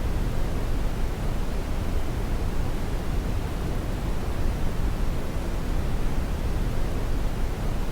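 Steady synthetic white noise of the kind played to lull a baby to sleep: an even, unbroken rushing hiss, heavier in the low end than in the high.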